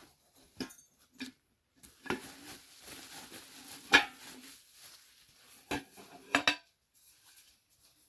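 Hard pieces of a chalice-shaped decorative object clinking and knocking against each other as they are handled and fitted together, with one loudest knock about halfway through and a quick double knock later.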